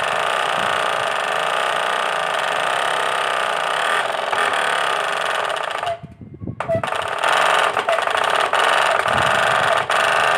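Bicycle's spinning rear-wheel spokes flicking a plastic-bottle noisemaker fixed to the frame, giving a fast, steady buzzing rattle meant to imitate a KTM Duke motorcycle exhaust. It cuts out briefly about six seconds in, then starts again slightly louder.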